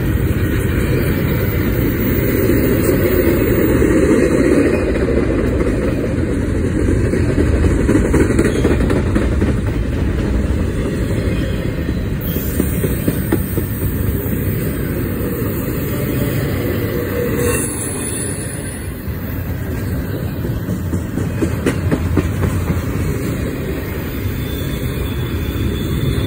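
Double-stack intermodal freight cars rolling past: a steady low rumble with the wheels clacking on the rails.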